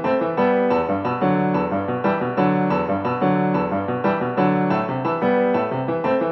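Piano music with a steady, repeating pattern of notes and chords.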